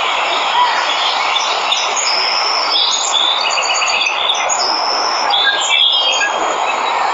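Steady rush of a waterfall, with birds chirping over it: several short high calls and a quick run of repeated notes in the middle.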